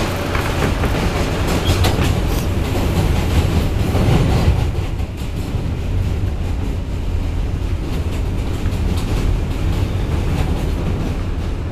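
An R160B Siemens subway car running at speed, heard from inside the car: a steady low rumble with sharp clicks from the wheels over the track in the first few seconds. After about five seconds the clicks thin out and the run goes slightly quieter and smoother.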